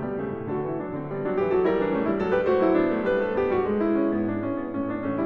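Background piano music, a melody over chords.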